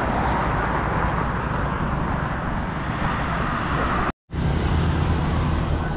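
Road traffic noise: a steady rush of passing vehicles' tyres and engines. It drops out abruptly for a split second about four seconds in, then comes back with a low, steady engine hum underneath.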